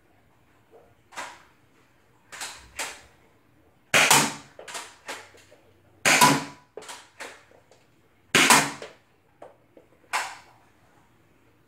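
Spring-powered Nerf Rival Knockout blaster being primed and fired, a series of sharp plastic clacks and pops. The three loudest come about two seconds apart, each followed by a few smaller clicks.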